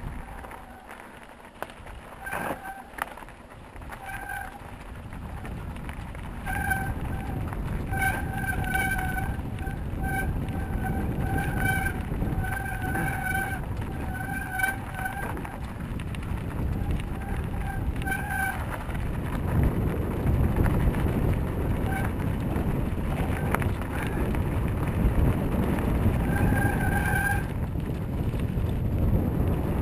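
Wind buffeting the microphone and rolling noise during a mountain bike ride, louder in the second half. Over it a short high-pitched tone repeats about once a second from a few seconds in until about two-thirds of the way through, and once more near the end.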